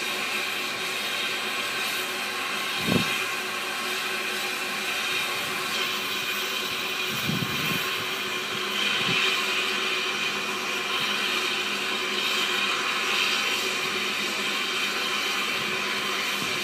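SECR P class 0-6-0T steam tank engine No. 178 moving slowly with a train of coaches behind it, giving off a steady hiss of steam. There is a single knock about three seconds in and a few low thuds around eight seconds.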